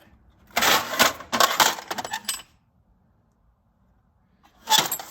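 Small steel cutting tools, end mills, clinking and rattling against each other as they are handled in a metal drawer. Two spells of quick clicks with a pause of about two seconds between.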